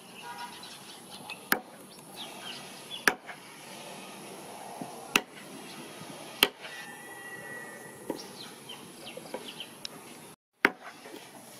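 A knife chopping raw chicken feet on a wooden chopping block: about five sharp chops, a second or two apart.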